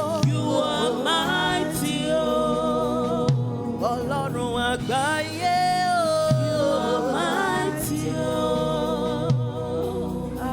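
Gospel worship singing: a lead voice with a group of singers holding long, bending notes over instrumental accompaniment with occasional drum hits.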